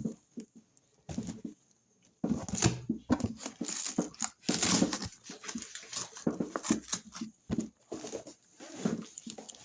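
Blender packaging and parts being handled: irregular rustling, crinkling and light knocks, starting after about two seconds of near silence.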